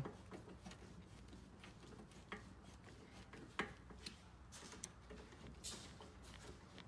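Faint, scattered ticks and clicks, a few of them spaced about a second apart, from the screws joining the steel roof rack sections being tightened.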